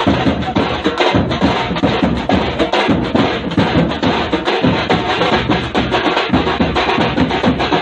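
Loud music driven by fast, dense drumming, the strokes coming several times a second without a break.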